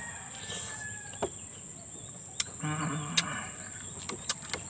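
Close-up eating sounds of a man biting and chewing siniguelas (Spanish plum) fruit and snapping fruits off a branch: scattered sharp smacks and clicks in the second half, with a short low hum near the middle. A steady high-pitched insect buzz runs behind.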